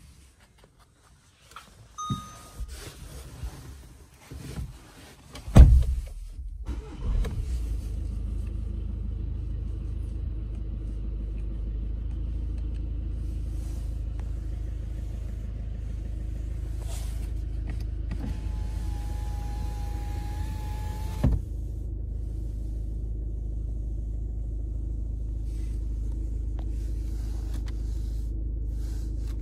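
Volkswagen Golf GTD's 2.0 TDI four-cylinder diesel engine starting about six seconds in and then idling steadily. A short beep and a few clicks come before it.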